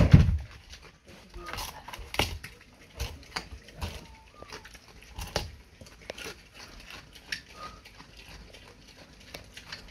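A pig eating a raw pumpkin, chomping and crunching the flesh in irregular bites. There is a heavy thump at the very start.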